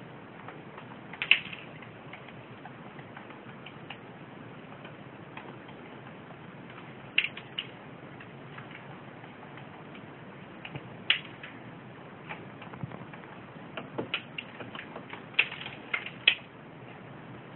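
Diamond doves pecking seed off a wooden shelf: scattered sharp taps, a few at first and then a quick run of them near the end.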